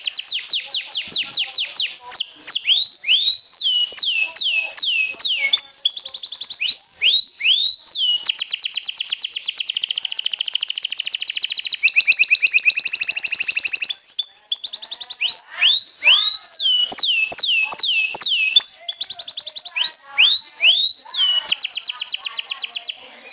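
Domestic canary singing a long song of repeated high notes: quick phrases of fast downward-sweeping notes alternating with rapid trills, including a long rolling trill in the middle.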